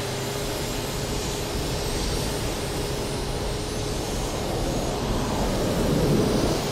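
The twin MiG-21 turbojet engines of the Big Wind fire-fighting machine running at full throttle: a steady jet roar with a faint steady whine that fades out about four seconds in, the roar growing fuller and a little louder near the end.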